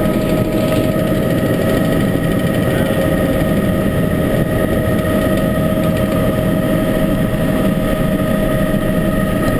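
Light helicopter's engine and rotor running steadily, heard from inside the cabin: a steady whine over a dense low churn.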